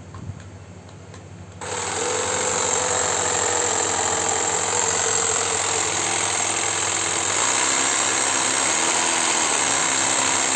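NRT Pro cordless jigsaw switched on about a second and a half in, its motor and reciprocating blade mechanism then running steadily at speed.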